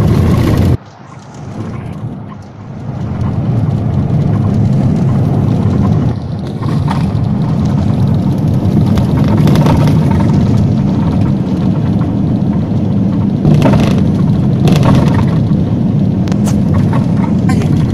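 A vehicle driving on an unpaved dirt road, heard from inside the cabin: a steady low rumble of engine and tyres. The sound drops out sharply about a second in and builds back up over the next few seconds, and there are a few short knocks past the middle.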